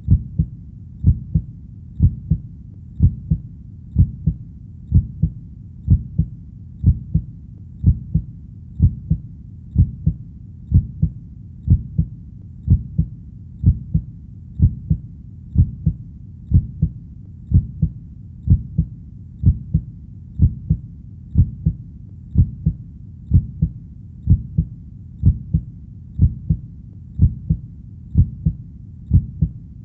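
Heartbeat, a steady lub-dub: a low double thump about once a second, at about 60 beats a minute, over a faint low hum.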